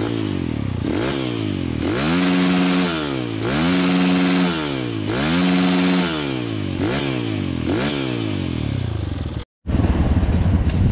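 Motorcycle engine revving repeatedly, about six times: the pitch rises, holds briefly and falls each time. Near the end it cuts off abruptly, and after a moment's silence the steady noise of motorcycles being ridden follows.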